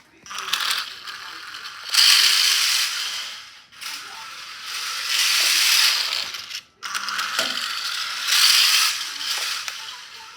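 Small remote-control toy truck's electric motor and gears whirring at full speed in long runs, surging and fading, with two brief drop-outs.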